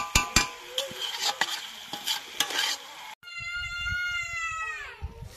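Metal spatula knocking and scraping against an iron kadai as chunks of pork curry are stirred, over a sizzle. After a sudden cut about three seconds in, a drawn-out high-pitched cry that falls in pitch at its end.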